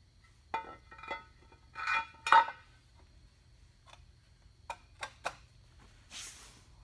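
Metal parts clinking and ringing as hardware is handled: several sharp clinks, the loudest a little over two seconds in and another pair near five seconds, then a short scraping hiss.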